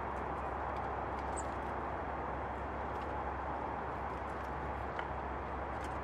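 Great spotted woodpecker and blue tits feeding at a wooden plank: faint light pecking taps and a couple of short high chirps, over a steady rushing background.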